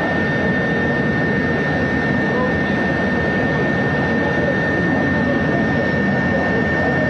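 Steady aircraft engine noise with a constant high whine over it.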